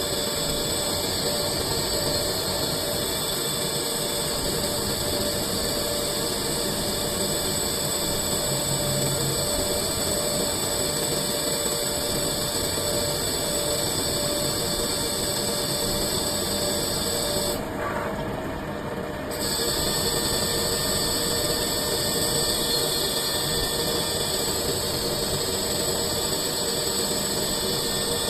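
CNC lathe running, turning a cylinder blank down into a ball: a steady machining noise with several high steady tones. It breaks off briefly about eighteen seconds in.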